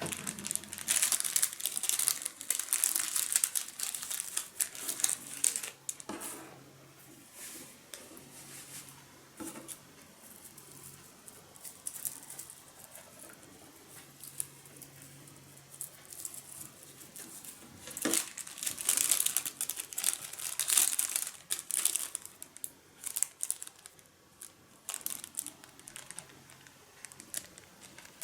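Crinkling and rustling of a light material being handled, in two long stretches, the first at the start and the second about two-thirds of the way through, with scattered clicks between them.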